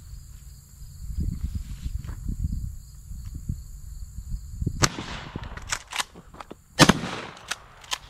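A 20-gauge pump shotgun blast about seven seconds in, by far the loudest sound. A quieter sharp crack comes about two seconds earlier, with a few clicks between the two. Insects buzz steadily in the background.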